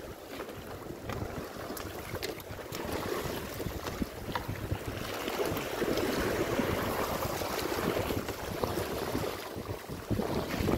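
Choppy sea water washing and splashing around bamboo stilts, with wind buffeting the microphone. It grows louder through the middle, with a few light knocks scattered through.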